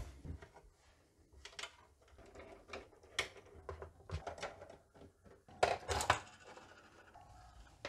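Scattered small clicks and light clatter as a screwdriver and screws work on the plastic case of a portable CD radio cassette player, with a louder plastic clatter about six seconds in as the housing is pulled apart.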